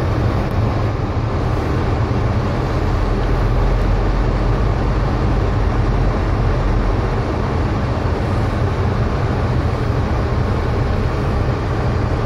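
Steady car cabin noise while driving: low engine and road rumble with tyre hiss, heard from inside the car.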